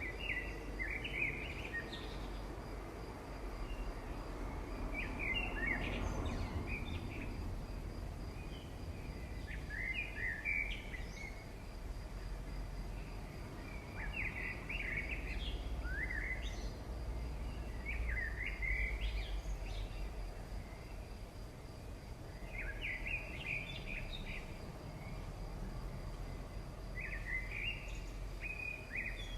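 A songbird singing short, chirping phrases, about eight of them at intervals of a few seconds, over a steady low background rumble.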